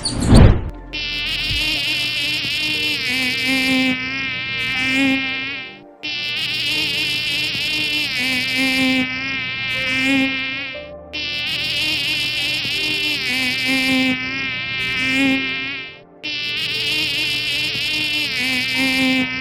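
Insect-like buzzing with a wavering pitch, stopping and restarting about every five seconds. A short loud whoosh comes just after the start.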